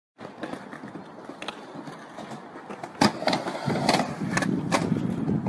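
Skateboard on a halfpipe: a few light clicks, then a sharp clack about three seconds in as the board drops onto the ramp, followed by the wheels rolling with a steady rumble and several more clacks.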